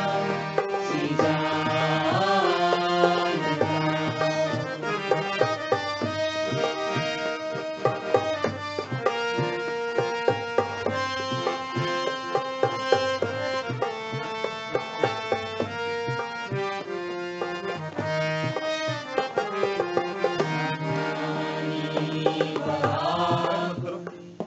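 Harmonium and tabla playing an instrumental passage, the tabla striking a steady rhythm under the harmonium's held melody. A group of voices sings at the start and comes back in near the end.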